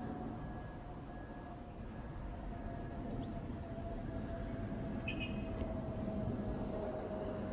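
Distant vehicle hum: a steady whine that slowly falls in pitch over a low rumble, growing gradually louder. A bird chirps briefly about five seconds in.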